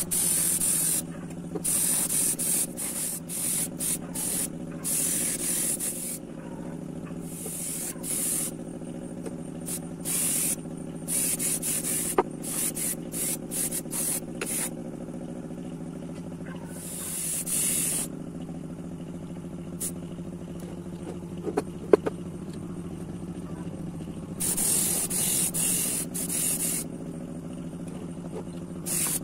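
Paint spraying in repeated hissing bursts, some short and some a second or more long, over a steady motor hum. A few sharp clicks come about twelve seconds in and again about three-quarters of the way through.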